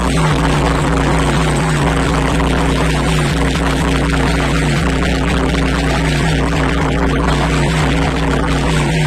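Competition DJ sound system of stacked speakers and amplifiers blasting a steady, very deep bass drone, with a pattern of short falling tones repeating over it.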